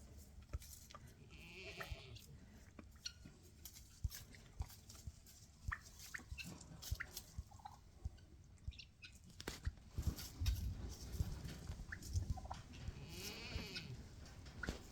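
Farm animals calling twice, a short high call about a second in and a longer wavering call near the end, over scattered small knocks and rustling.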